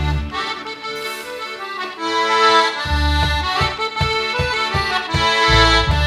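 Dino Baffetti organetto (diatonic button accordion) playing a folk tune, with a melody over held chords. The bass drops out for the first few seconds, then comes back as a steady pulse about three times a second.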